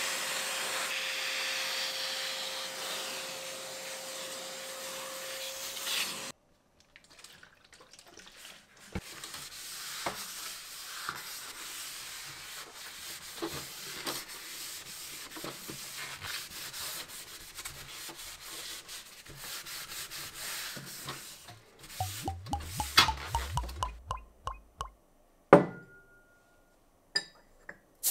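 A vacuum cleaner runs with a steady hum, its nozzle sucking dust out of a metal tool case, and cuts off suddenly about six seconds in. Then a cloth rubs over the case's metal bottom, wiping it clean. Near the end come a quick run of clicks and a single loud knock.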